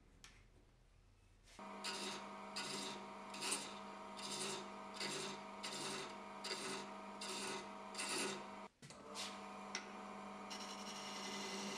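Wood lathe motor running with a steady hum while a hand-held male thread chaser scrapes threads into a spinning apricot-wood tenon. The scraping comes in rhythmic strokes, about three every two seconds, turning into a steadier hiss near the end. The lathe starts about a second and a half in.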